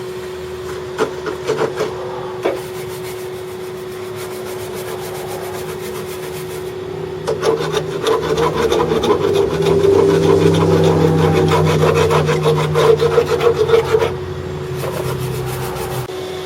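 Rapid scratchy scrubbing strokes of a wire brush on the rusty steel oil pan of a Ford diesel pickup, heaviest in the middle, as loose rust is cleaned off before sealing. Underneath, a vacuum cleaner hooked to the oil fill hums steadily.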